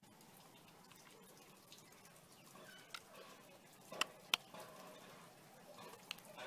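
Handling of a small plastic Sony SRS-35 speaker: a few sharp clicks and taps, two close together about four seconds in, as a mini-jack plug is pushed into the socket on its back, over a faint background hiss.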